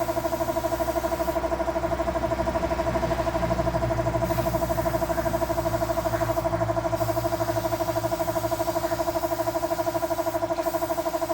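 A small motor-driven machine running steadily: an even hum with a fast, regular pulse that holds the same pitch throughout.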